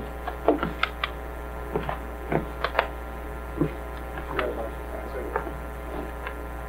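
Sparse, scattered hand claps from a few audience members, irregular and thinning out after about three seconds, over a steady electrical mains hum.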